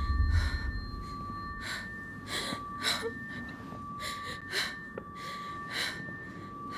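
A woman breathing hard in short gasps, about seven breaths a second or so apart, over a steady high-pitched two-tone drone.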